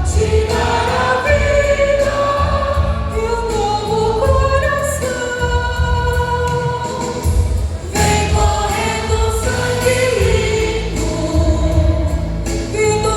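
Vocal group singing a gospel song in several voices over a steady low beat.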